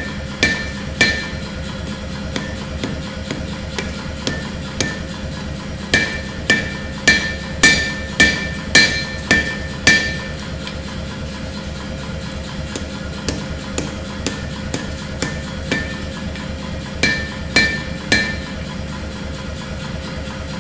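Hand hammer forging a red-hot Damascus steel knife blade on an anvil. Each blow has a bright metallic ring, and the blows come in runs: a few early, a steady run of heavier ones about two a second in the middle, then lighter taps. A steady hum sits underneath throughout.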